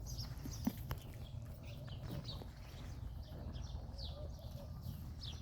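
Small birds chirping repeatedly with short, high, downward-sliding calls over a steady low rumble. A couple of sharp clicks come just under a second in.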